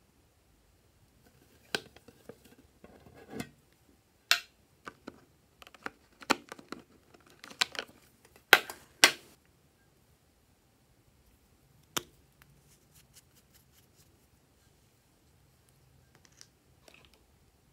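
Clicks, taps and knocks of a Coca-Cola Lip Smacker lip balm tin and its plastic lip balm tubes being handled: the lid coming off and tubes knocking together as they are picked out. The two loudest clicks come close together a little past the middle, with a single sharp click later and only faint ticks near the end.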